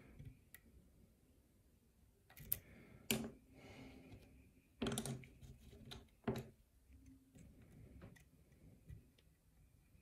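Lock pick and tension wrench working a five-pin lock cylinder: scattered faint metallic clicks and ticks, with a few sharper clicks about two and a half, three, five and six seconds in.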